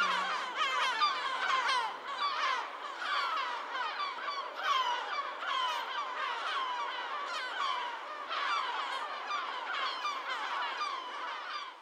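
A flock of birds chirping and calling: many short, overlapping chirps in a steady, dense chorus.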